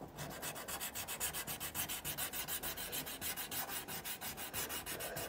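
Drawing tool rubbing on lined notebook paper in rapid, even back-and-forth shading strokes, about eight a second.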